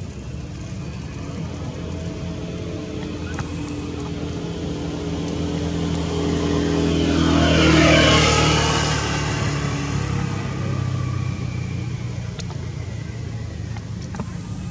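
A motor vehicle drives past: its engine and tyre noise grow louder to a peak about eight seconds in, the engine note dropping in pitch as it passes, then fade away.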